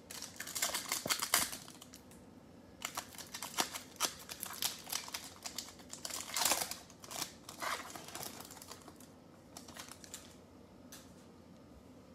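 A foil-wrapped Panini Select football card pack being torn open and crinkled in the hands, then the cards slid out of the wrapper: runs of sharp crackles and rustles that thin out after about eight seconds.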